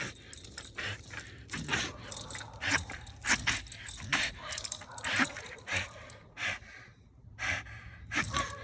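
An American bully dog breathing hard in short, noisy, irregular breaths, about one or two a second, while it exerts itself.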